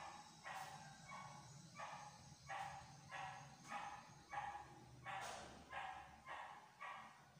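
A dog barking over and over, about three barks every two seconds, faint.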